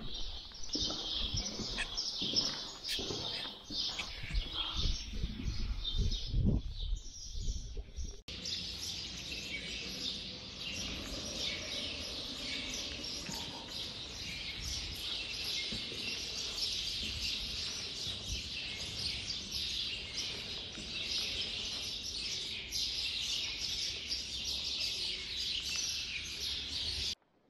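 Many small birds chirping continuously in a dense chatter, with footsteps on a dirt floor during the first several seconds. About eight seconds in the sound changes abruptly to steadier, denser chirping without steps, which stops suddenly near the end.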